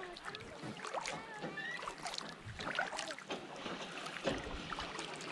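Distant voices and calls of people on paddle boats carrying across open water, over small splashes and knocks from kayak paddling.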